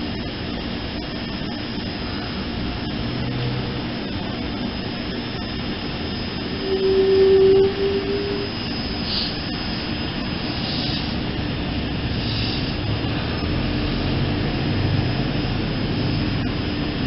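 SEPTA Kawasaki K-Car light-rail trolley standing with a steady hum and rumble. About seven seconds in it sounds one loud horn blast lasting just over a second, trailing off briefly.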